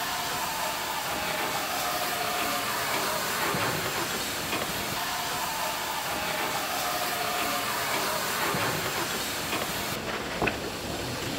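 Class 25NC steam locomotive standing with steam escaping in a steady hiss.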